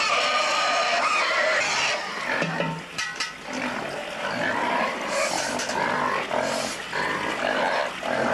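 Pigs squealing and grunting throughout, with a few sharp knocks about three seconds in.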